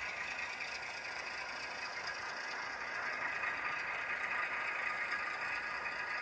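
Bachmann Salty model diesel locomotive running on the layout, its ESU LokSound 5 sound decoder playing a steady diesel engine sound through the model's small speaker, along with the running noise of the mechanism on the track.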